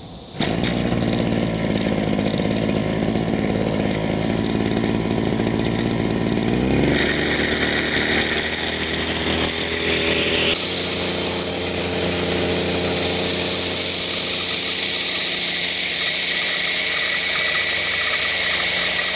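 Engine-driven brush cutter running steadily, then revved up about seven seconds in and again, harder, about ten seconds in.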